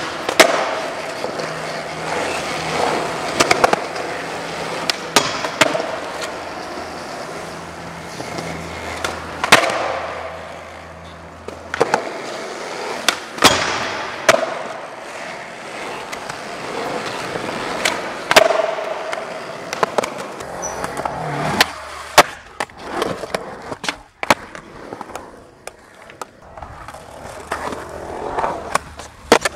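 Skateboard wheels rolling on smooth concrete, broken by a string of sharp clacks from tail pops, board slaps and landings, with the board scraping along a ledge.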